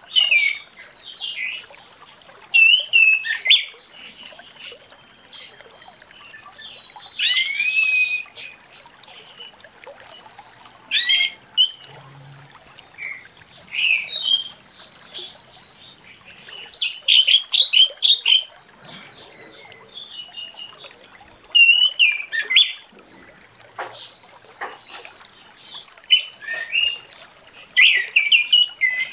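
Orange-headed thrush (anis merah) in full song ('ngeplong'): a run of quick, varied whistled phrases and chirps, coming in bursts with short pauses.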